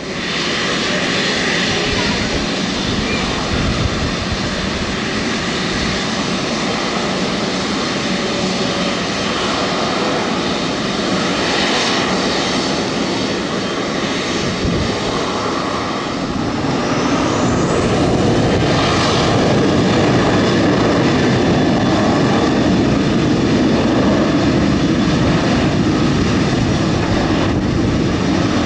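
Jet engines of a Boeing 777-200LR, its twin GE90 turbofans, whining steadily at taxi power as the airliner rolls past, growing louder a little past halfway through.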